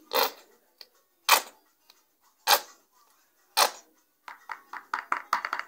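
Sharp plastic knocks about once a second, then a quick run of lighter rattling clicks near the end: a spoon and containers being knocked against a plastic mixing bowl as sunblock is added to a homemade body lotion mix.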